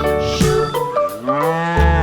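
A cow mooing once over background music, a drawn-out call about a second in that rises in pitch and then levels off.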